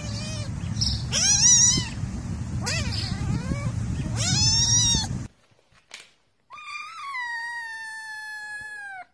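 A black kitten mewing about four times in quick, high-pitched calls over a low rumble. After a cut, an adult cat gives one long drawn-out meow of about two and a half seconds, its pitch sinking slightly toward the end.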